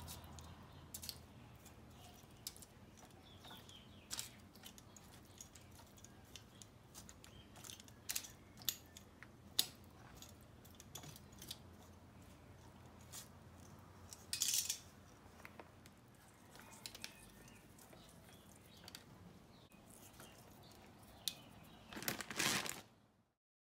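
Light kitchen handling noises: scattered small clicks and taps, with short crinkling rustles of aluminium foil just past the middle and again near the end. The sound then cuts off.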